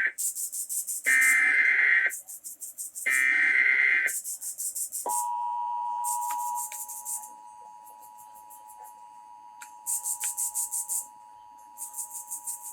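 Emergency Alert System test signal: three short screeching SAME data-header bursts about a second apart, followed by the steady two-tone attention signal (853 and 960 Hz) starting about five seconds in. The attention tone drops in level after a couple of seconds and holds, with two more short high-pitched data bursts over it near the end.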